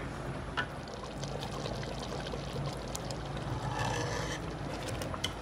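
A ladle stirring thick curry sauce in a stainless steel pot, lifting it and letting it pour back, with a few light metal clinks. A steady low hum runs underneath.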